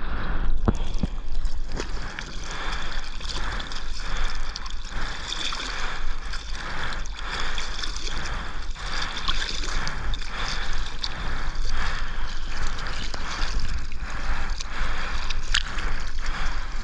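Water sloshing and splashing over the nose of a paddled surfboard right at a waterline-mounted camera, with a steady low rumble and repeated short splashes from the paddling strokes.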